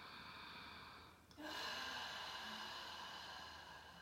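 A woman's slow, controlled breathing: the tail of an inhale, a brief break about a second in, then a longer, louder exhale that slowly tapers off. It is a Pilates lateral breathing demonstration, with the breath kept at an even volume.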